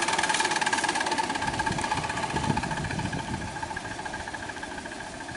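Miniature ride-on vertical-boiler steam locomotive running along the track: a rapid, steady mechanical beat with a constant high tone over it, fading as it moves away.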